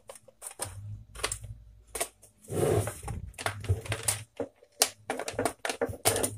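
Hard plastic parts of a pedestal fan's stand housing clicking and knocking as they are handled and opened up, with a short scraping rustle about two and a half seconds in.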